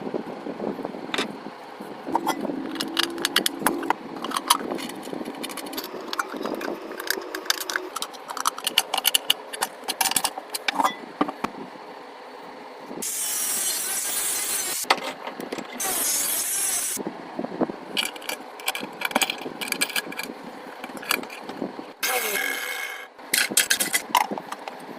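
Tools and metal parts handled and fitted together, with many clicks and knocks, as an angle grinder is rigged up as a mixer. About halfway through there are two short bursts of loud hissing noise, and a brief steady whine near the end.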